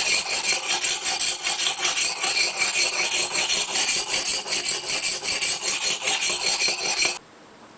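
Steel axe blade scraped back and forth on the coarse side of a wet sharpening stone in quick, even strokes, grinding out nicks to roughly reshape the edge. The strokes stop abruptly shortly before the end.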